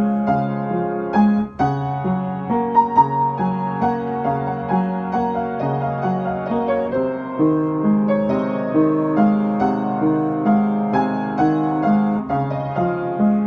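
Piano music: a steady run of struck notes in the middle register over lower, longer-held notes.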